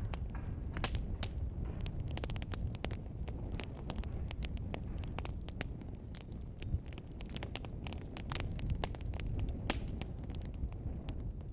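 Fire burning in a fireplace: dense, irregular sharp crackles and pops over a low steady rumble of the flames.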